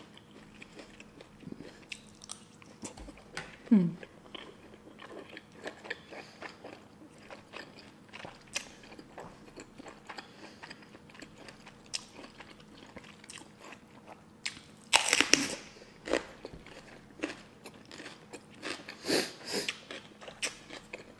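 Close-miked eating: wet chewing and small crunches throughout, with a loud crisp crunch about fifteen seconds in and more crunching about four seconds later as raw red bell pepper is bitten and chewed.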